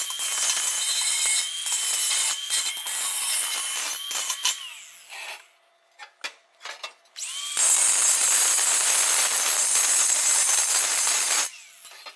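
Angle grinder grinding the plasma-cut edges of an opening in a steel wheel rim smooth, its motor whining steadily under the grinding noise. The grinder winds down about four and a half seconds in, a few light knocks follow, then a louder, hissier pass of grinding starts about halfway through and stops shortly before the end.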